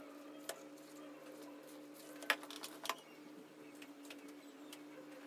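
Three short, light taps on a desk, about half a second in, just past two seconds and near three seconds, over a steady low hum.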